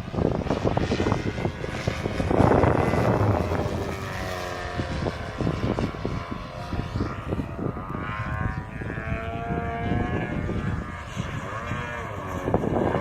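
DA70 twin-cylinder petrol engine of a Laser EXP aerobatic RC plane in flight, its propeller drone rising and falling in pitch as the throttle and the plane's passes change. It is loudest about two seconds in and again near the end.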